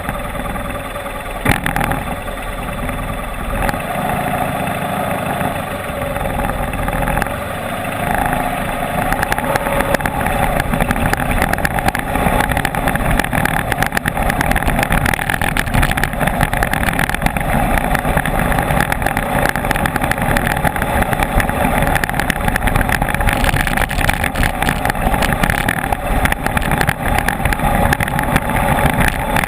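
Enduro motorcycle engine running while riding an off-road trail, getting louder about eight or nine seconds in and then holding steady, with clatter from the rough ground.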